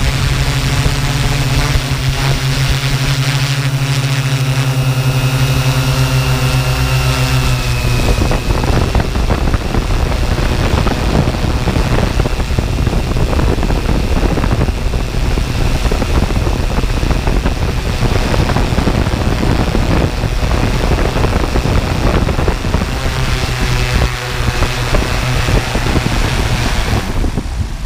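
Multirotor drone's motors and propellers humming steadily, with wind rushing over the aircraft. About eight seconds in, the steady hum gives way to a rougher rushing noise, and it returns shortly before the end.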